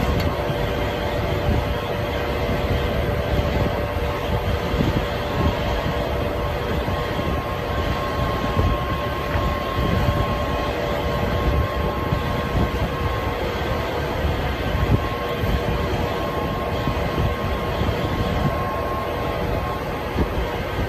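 Steady mechanical drone of barn machinery, with a constant hum and a fainter, higher tone held above it.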